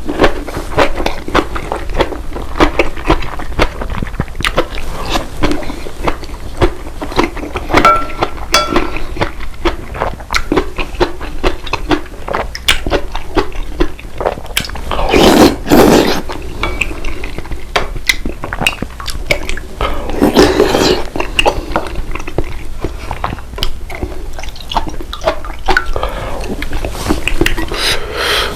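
Eating at a table: utensils clicking and clinking against dishes again and again, with chewing, and two louder, longer sounds about halfway and two-thirds of the way through.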